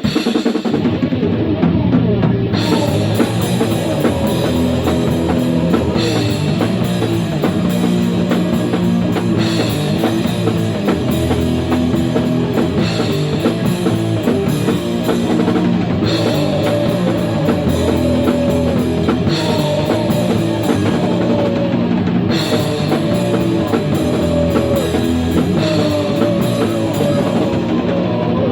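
Instrumental rock music: a drum kit and guitars play a repeating riff without vocals. The full band comes in about two seconds in.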